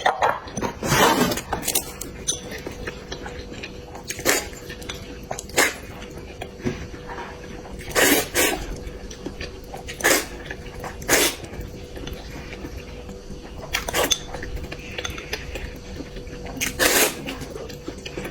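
Close-miked eating: short, loud slurps every few seconds, with chewing and the clink of dishes and cutlery between them.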